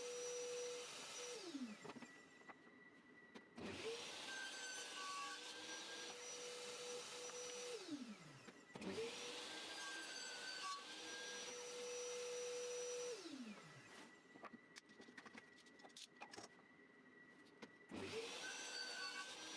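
Power saw switched on and run for a few seconds, then switched off and winding down in pitch, repeated several times while kerfs are cut into plywood frame parts. Quiet knocks and clicks of handling come in the pauses between runs.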